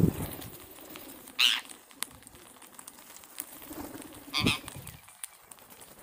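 A flock of rose-ringed parakeets feeding on scattered grain: many small clicks of beaks pecking and cracking seed, a low flutter of wings at the start, and two short calls, about a second and a half in and again near the four-and-a-half-second mark.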